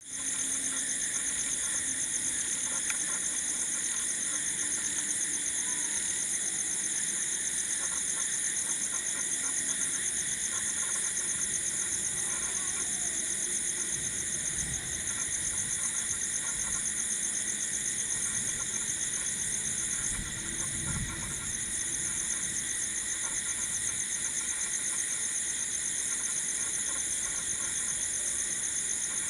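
Night chorus of crickets: a steady, high-pitched, fast pulsing trill from many insects at once. Twice a faint low rumble passes underneath.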